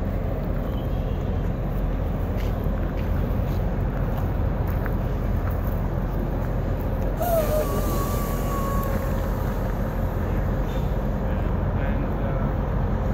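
Diesel engine of a large Neoplan coach running with a steady low rumble as it manoeuvres slowly. About seven seconds in, a hiss of compressed air starts and lasts a few seconds.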